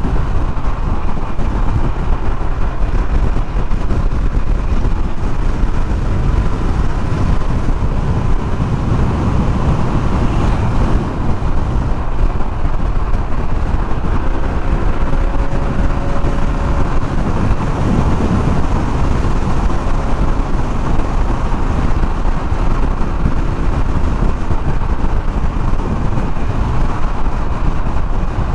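Yamaha NMAX 155 scooter on the move: steady wind rush on the microphone over the engine and road noise.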